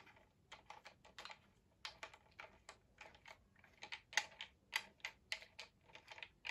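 K&F Concept TM2515T aluminium camera tripod being handled and adjusted: a string of light, irregular clicks and taps from its locks and joints, a few a second.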